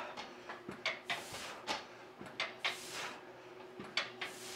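A leg extension machine worked through a heavy rep: short hissing sounds about once a second, with light clicks and knocks from the machine.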